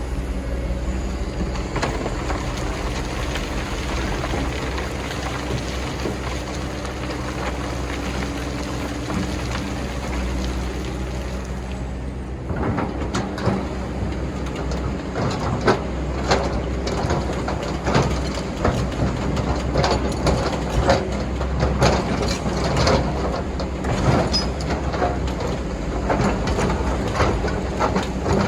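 Excavator's diesel engine running steadily under load, joined about twelve seconds in by a quick irregular run of metallic clanks and knocks from the working machine.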